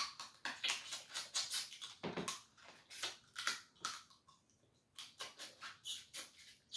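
Blue crab being cracked and eaten close to the microphone: irregular quick cracks, clicks and wet mouth smacks, with a pause of about a second partway through.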